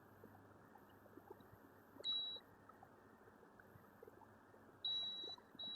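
Multimeter continuity beeper sounding a steady high beep: a short beep about two seconds in, then a longer one near the end that carries on. The beep means the probed capacitors show a short to ground on the phone's battery (VBAT) line.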